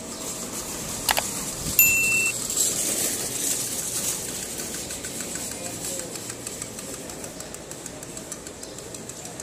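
Outdoor street ambience in a pedestrian lane: a sharp click about a second in, a brief high beep just after, then a hissing noise that fades slowly.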